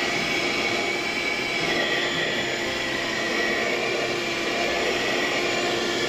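Piranha PVC-4005 12 V, 60 W handheld car vacuum cleaner running steadily, its motor giving a high whine that dips slightly in pitch about two seconds in, as its nozzle is worked over a fabric car seat.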